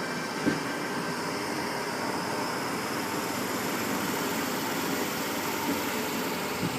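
A stationary vehicle idling: a steady mechanical hum with air-conditioning-like noise and no change in pitch, with a faint knock about half a second in and another near the end.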